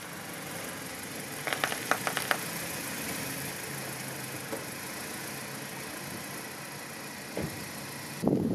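Honda SUV's engine idling steadily, with a quick run of sharp clicks about a second and a half in and a single knock near the end.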